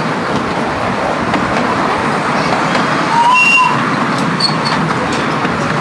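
Steady running noise of a 7.25-inch gauge miniature railway train, heard from aboard one of its open passenger carriages. A brief high-pitched tone comes about three and a half seconds in.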